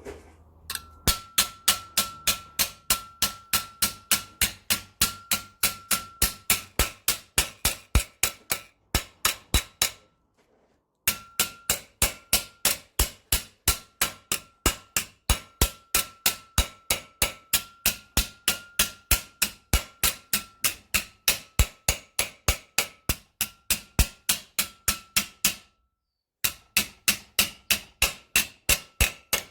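Hammer blows on a small steel repair plate, shaping it, at about two to three evenly spaced blows a second with a steady metallic ring. The hammering stops briefly twice.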